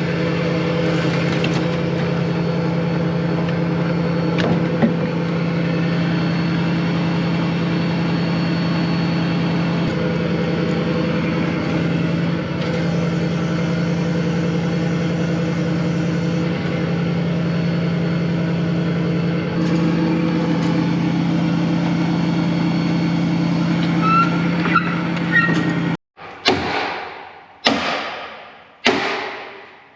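An engine idles steadily with a constant low hum. After an abrupt cut near the end, a hammer strikes metal four times, a little over a second apart, and each blow rings out as it fades.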